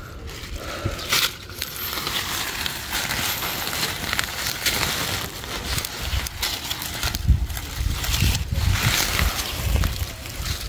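Rustling and crinkling of a woven sack and dry papaya leaves handled close by, in irregular crackly bursts.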